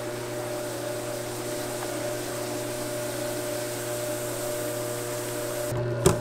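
Stand mixer motor running with a steady hum and hiss as liquid nitrogen is poured into the mixing bowl and boils off. Near the end the hum grows louder and a sharp knock is heard.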